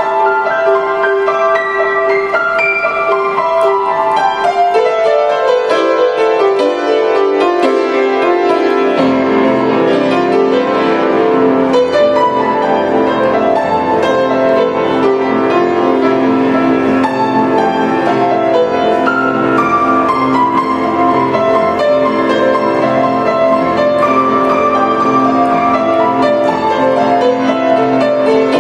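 Grand piano played by hand. For the first nine seconds or so the playing stays high over a held note, then bass notes come in and the texture grows fuller.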